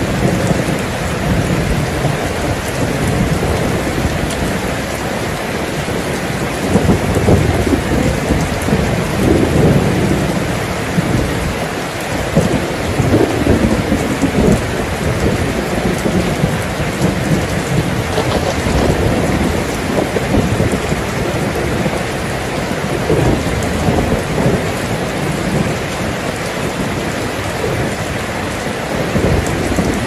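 Heavy rain pouring steadily, with low rumbles of thunder swelling and fading underneath.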